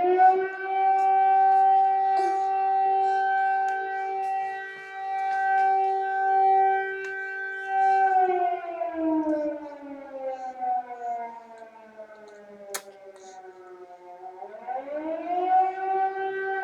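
Civil defence air raid siren wailing as an air raid alert. It rises at the start, holds one steady tone for about eight seconds, slides slowly down, then rises again near the end.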